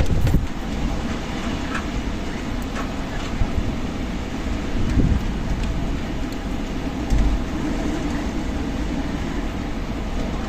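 Strong desert wind gusting against the microphone: a steady rush with heavy low rumbling buffets that swell and ease.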